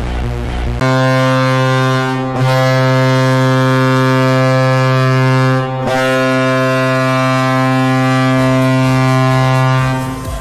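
Hockey arena goal horn blowing: a deep, steady, ship-like horn held in long blasts, broken twice for a split second, about eight seconds in all. A short bit of electronic music plays just before it starts.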